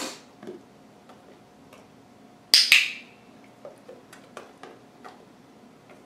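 A dog-training clicker clicks twice in quick succession about two and a half seconds in, marking the sitting dog's behaviour for a reward. A single sharp tap comes at the start, and fainter ticks follow.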